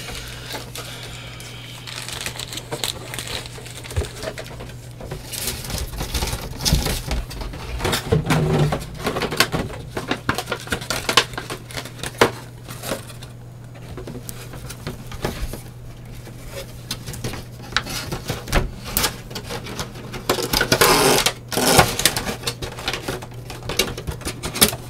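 Hands handling a plastic figurine, its base and small accessory pieces: irregular clicks, taps and rustling, with a busier cluster of handling sounds near the end, over a steady low hum.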